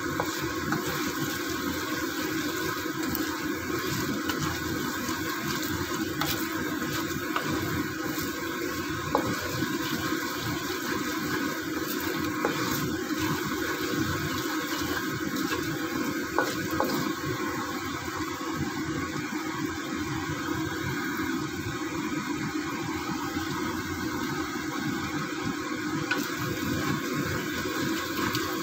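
Coconut milk boiling hard in a pan as it is cooked down for latik, a steady bubbling, stirred with a wooden spatula that gives a few light knocks.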